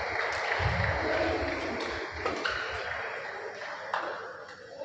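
Sports-hall noise at a badminton match: a wash of crowd noise that slowly fades, with a few sharp knocks and short squeaks.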